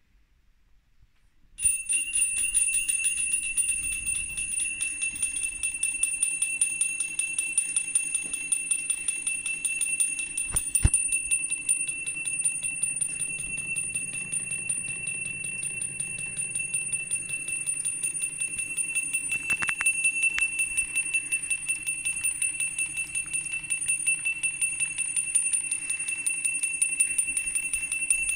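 Homemade motor-driven electric bell: a small electric motor spins a belt-driven striker that hits two small brass bell cups over and over, giving a rapid, continuous ringing that starts suddenly about a second and a half in when it is switched on. A couple of brief knocks sound partway through.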